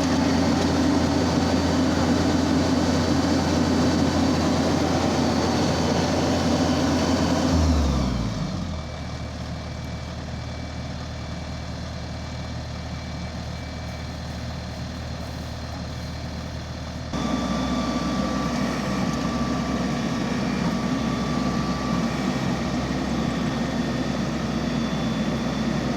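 Rice combine harvester engine running steadily at high speed. About eight seconds in, its pitch drops and it settles to a quieter idle. About seventeen seconds in, it abruptly runs loud again.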